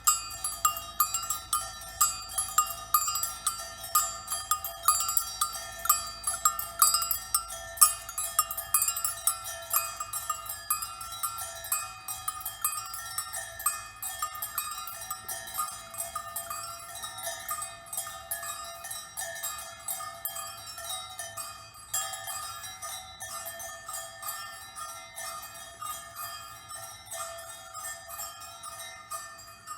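Many small bell-like metal strikes in a dense, irregular patter, each ringing at one of a few fixed pitches. They are loudest and busiest during the first twelve seconds, then become softer and sparser.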